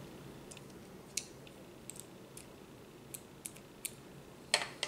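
Scattered light clicks and ticks of small screws and a metal screwdriver being handled while assembling a hobby RC car differential, with a sharper double click near the end.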